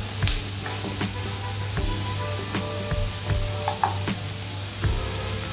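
Chopped onions sizzling in hot oil in a nonstick pan, being sautéed to a deep brown, while a spatula stirs them with irregular scrapes and taps against the pan.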